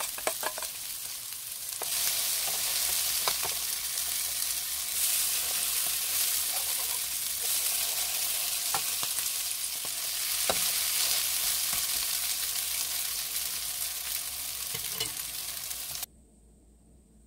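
Oil sizzling steadily under small tuna and enoki mushroom pancakes frying in a nonstick pan, with a few sharp clicks and scrapes of the spatula against the pan. The sizzle gets louder about two seconds in and cuts off suddenly near the end.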